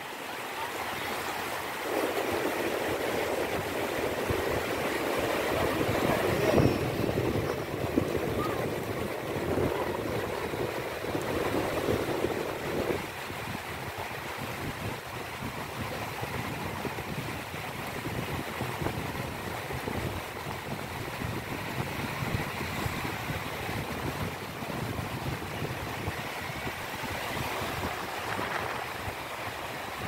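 North Sea surf: rows of small waves breaking and washing up a shallow sandy shore, louder for roughly the first dozen seconds, with wind buffeting the microphone.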